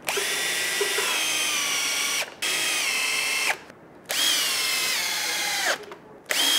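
Cordless drill driving screws through metal mounting plates into a timber post and rail. The motor whine runs in several spells of a second or two with short pauses, sinking in pitch near the end of each run as the screw tightens.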